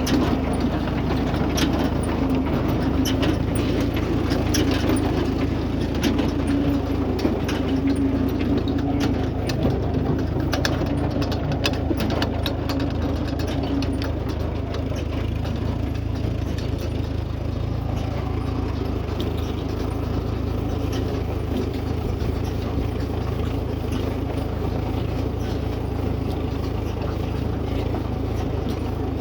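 John Deere 116-W baler working: a steady engine hum under rapid clicking and rattling from the machine, which thins out after about halfway.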